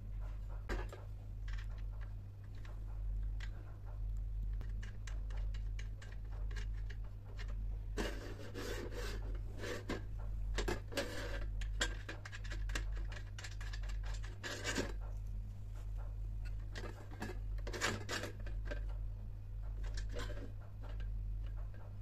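Rubbing and scratching with scattered light knocks and clicks, busiest in the middle of the stretch and again near the end, over a steady low hum.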